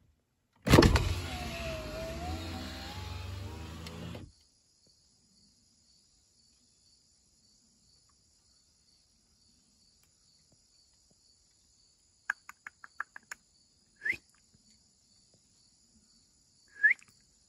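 A steady motorised whir with a wavering tone starts sharply near the beginning, lasts about three and a half seconds and stops abruptly. Later come a quick run of about six light ticks, then two short rising chirps a few seconds apart.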